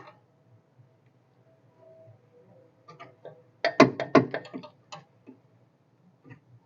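Metal parts and tools knocking and clicking while a rear shock absorber is fitted: faint scattered clicks, then a quick cluster of about six sharp knocks and clicks around four seconds in.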